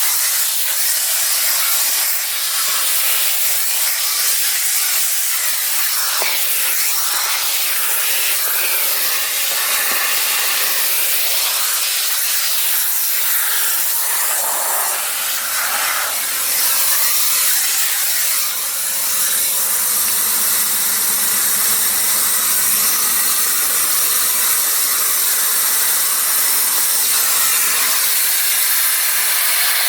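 Electrolux Ergospace canister vacuum cleaner running, the air rushing through its nozzle as a loud, steady hiss whose texture shifts now and then.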